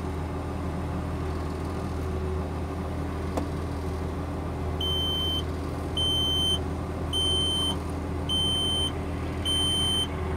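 Mobile crane's cab computer (load moment indicator) sounding its start-up warning beep: a high beep about half a second long, repeating a little more than once a second from about halfway in. Under it is the steady low hum of the crane's engine running.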